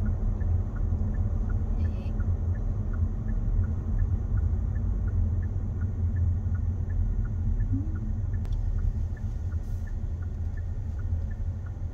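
Car driving in city traffic, heard inside the cabin: a steady low road and engine rumble, with the turn signal ticking regularly throughout.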